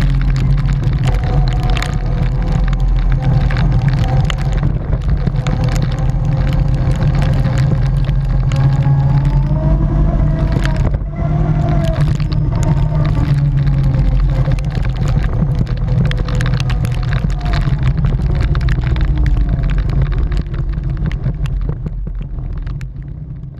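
Can-Am ATV engine running at a steady cruise, its pitch rising and falling a little with the throttle, under heavy wind rumble on the microphone and frequent ticks of tyres on a wet gravel track. The sound fades out near the end.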